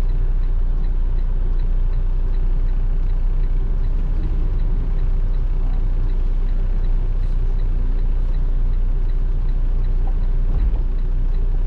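Steady low rumble inside a semi-truck cab parked on the shoulder: strong gale-force wind buffeting the cab over the running engine, with a light, even ticking running through it.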